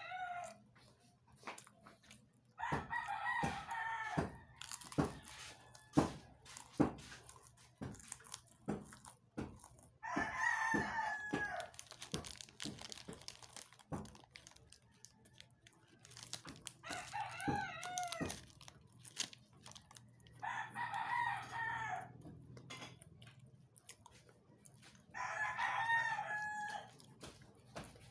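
A rooster crowing five times, each crow about a second and a half long and several seconds apart. Between the crows come short crisp crunches of SkyFlakes crackers being bitten and chewed.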